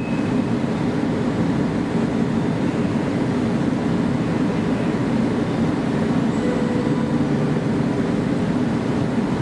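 Steady low rumble and hum of an EN57 electric multiple unit standing at the platform under a station roof.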